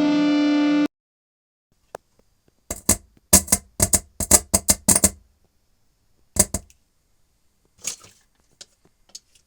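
Guitar music cuts off abruptly under a second in, followed by silence and then a quick run of sharp clicks and knocks, with a few more scattered clicks later.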